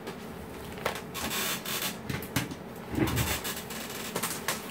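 Handling noise as an AC adapter cable and plug are fitted to a shiatsu massager: rustling and scraping with several sharp clicks, and a dull knock about three seconds in.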